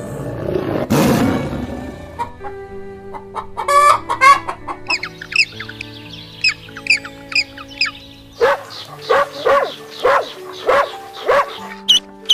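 Chickens clucking: a run of short, high, falling calls, then louder, lower clucks repeated about twice a second, over background music with sustained notes. There is a brief noisy rush about a second in.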